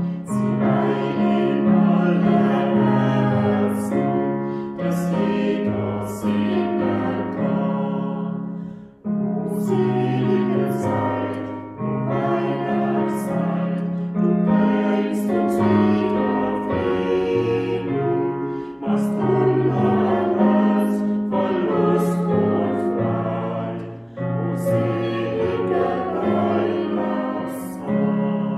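A mixed choir singing in phrases of a few seconds, with piano accompaniment. The last chord dies away at the end.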